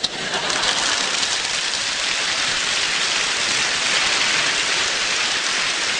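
A large audience bursting into applause, a dense, steady clatter of many hands clapping that starts suddenly and holds at full strength.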